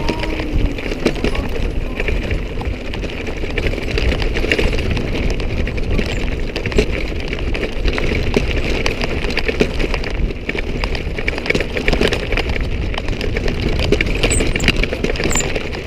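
Mountain bike rolling fast down a rough dirt trail: constant rattling and clattering of the bike over stones, tyres crunching on gravel, with wind buffeting the microphone.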